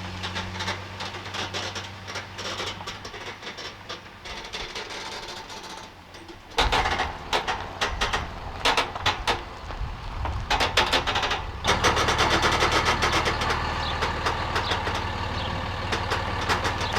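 A vehicle engine running steadily. From about six and a half seconds in, a run of clattering knocks starts, and from about twelve seconds the engine is louder.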